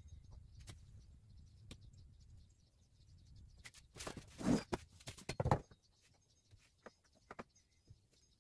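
Handling and work noises: scattered light clicks and knocks, then a louder rough noise in two bursts about four seconds in, lasting about a second and a half.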